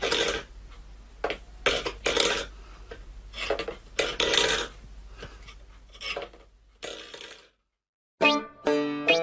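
Stainless steel pet bowl pushed and scraped across a wooden floor by a cat's paw, in a series of short clattering scrapes about once a second. Music with plucked notes starts near the end.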